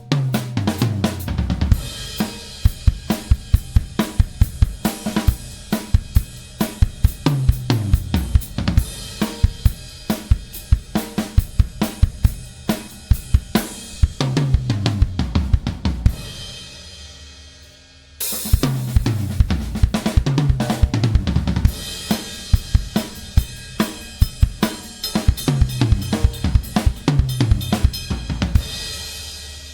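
TMS custom drum kit with Keller shells being played: bass drum, snare, hi-hat and cymbals, with repeated fills that run down in pitch across the toms. Around halfway through the playing stops for a couple of seconds while the ringing fades, then starts again.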